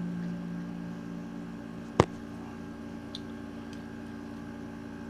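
Electric guitar chord left ringing out, its notes sustaining and slowly fading. A single sharp click about two seconds in, with a few faint ticks after.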